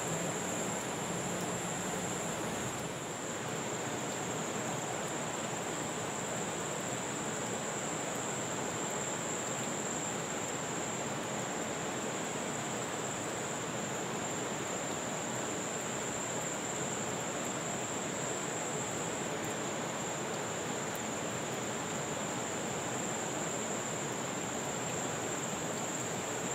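Steady rush of a flowing river, with a constant high-pitched drone of insects over it.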